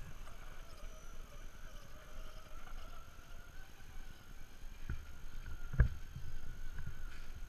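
Faint whine of a radio-controlled scale rock crawler's electric drive as it climbs rock, wavering slightly in pitch. Toward the end come a few low thumps, one much louder about six seconds in.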